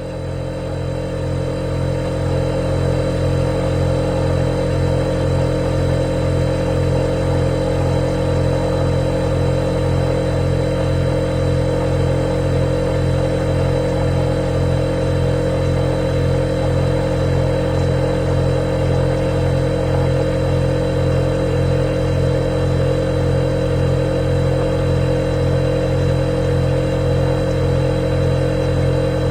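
Refrigerator running with a steady electric hum, several steady tones layered over a low drone, swelling up over the first couple of seconds and then holding even.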